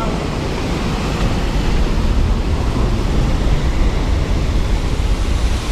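Steady rush of a waterfall pouring down a granite cliff onto the trail close by, with wind buffeting the microphone as a heavy low rumble.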